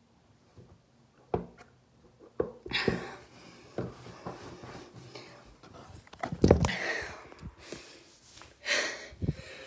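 A few knocks as a water-filled shoe is handled, then from about three seconds in splashing, gulping and heavy breathing as water is chugged out of the shoe.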